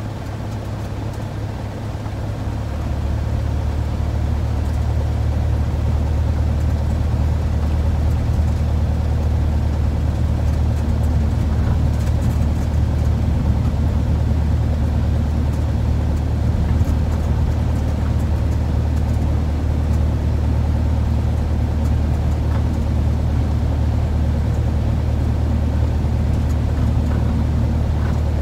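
Piston engine and propeller of a single-engine light aircraft heard inside the cockpit, a loud steady drone. About two to three seconds in the power comes up, and it then runs evenly at the higher setting.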